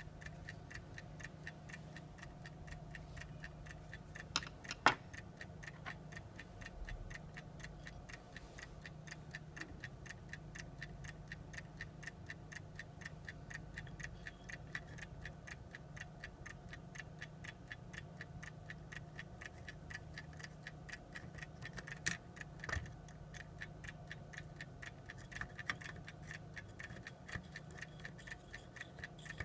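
Frog clock's movement ticking with a fast, even beat, over a faint steady hum. A few louder knocks come about four to five seconds in and again a little after twenty seconds.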